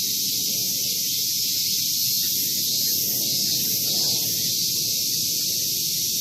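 Male min-min cicadas (Hyalessa maculaticollis) singing: a steady, high-pitched buzzing drone, with a low rumble beneath it.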